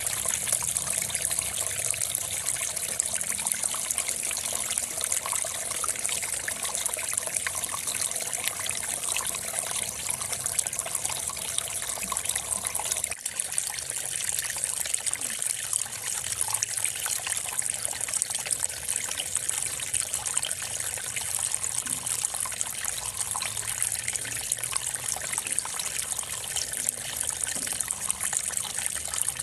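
A steady, high hiss of outdoor background noise with a faint crackle through it, like trickling water; a fainter mid-pitched hum drops out about halfway through.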